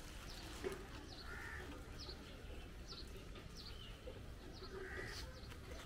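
Faint bird calls: crows cawing twice, with small birds giving short falling chirps one or two a second. A single sharp click about two-thirds of a second in.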